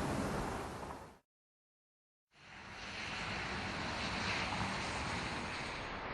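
Steady rushing noise of a car driving on the road, tyre and wind noise with no distinct engine note. It cuts to dead silence about a second in for about a second, then fades back in.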